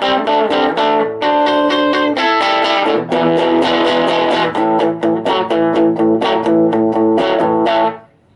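Electric guitar played through a small, freshly repaired budget guitar combo amplifier, not yet turned up, with a quick run of picked notes and chords. The playing stops abruptly about eight seconds in.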